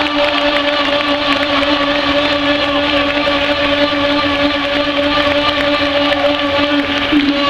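A horn in the stadium stands held on one long, steady note, over the noise of the football crowd celebrating a goal. The note wavers briefly near the end.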